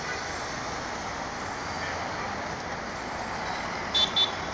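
Steady city street traffic noise. About four seconds in come two short, loud, high beeps in quick succession.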